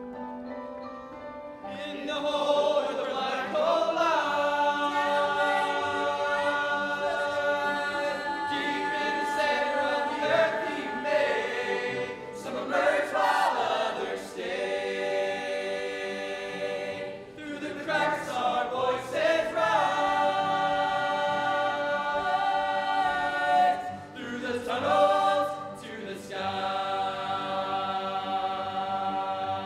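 Musical theatre cast singing together in chorus, several voices holding long chords in phrases with short breaks between them.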